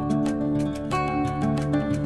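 Background music: held melody notes over a steady, regular beat.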